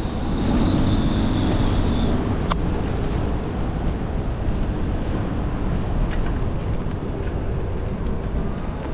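Wind rumbling on the microphone of a bicycle rider moving through city traffic, with a higher hiss in the first two seconds and a single sharp click about two and a half seconds in.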